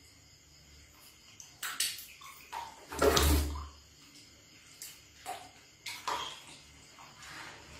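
Water splashing and sloshing in a plastic basin as two baby monkeys move about in it, with one big splash about three seconds in and smaller splashes before and after.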